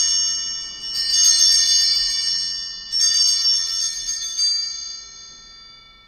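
Altar bells rung at the elevation of the consecrated Host: three jangling shakes of small bells about two seconds apart, the last ringing on and dying away.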